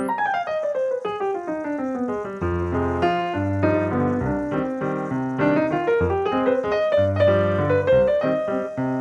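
Background piano music: a quick falling run of notes, then a flowing melody over low chords.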